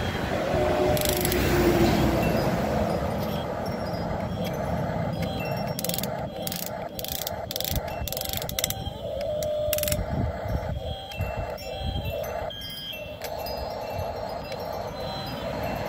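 Electric drive motors of a 1/16-scale, 17-channel Double E RC excavator whirring as the boom, arm and bucket move, digging dirt and swinging over to a dump truck. A run of sharp clicks and scrapes comes about six to ten seconds in.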